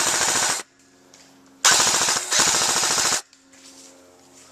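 Airsoft electric gun firing on full auto: fast, even mechanical cycling in short bursts. One burst ends about half a second in, and two more follow back to back from about a second and a half in, lasting about a second and a half together.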